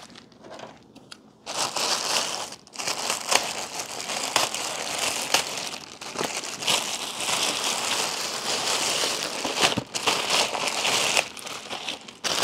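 Plastic shipping packaging crinkling and rustling as it is handled and pulled open: a grey poly mailer and the black plastic bag inside it, with scattered sharp crackles. It is quieter for about the first second and a half, then busy crinkling throughout.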